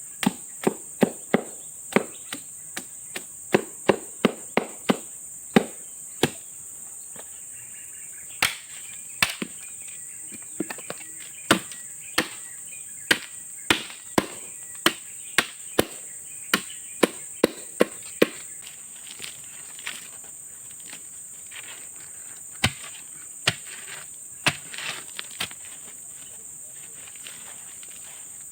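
Wood being chopped with a blade: a run of sharp strokes, one or two a second, thinning out after about 18 seconds. A steady high insect drone runs underneath.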